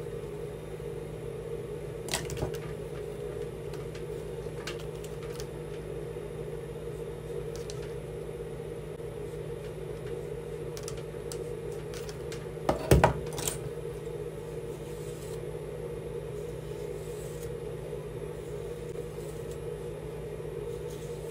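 A comb being dragged hard through a wig's hair, heard as scattered short scratches and knocks, the loudest about 13 seconds in, over a steady low hum.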